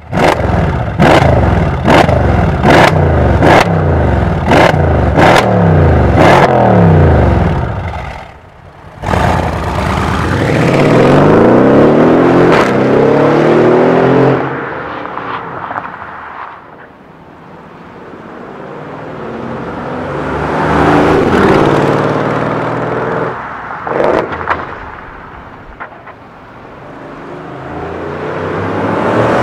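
Mercedes-AMG C217 S63 Coupé twin-turbo V8 through a loud MEC Design stainless steel aftermarket exhaust. For the first eight seconds it is revved in quick blips, about two a second, each with a sharp crack; then it sets off hard, the note rising as it accelerates away and fades, and near the end it comes back up in level as the car drives by at speed.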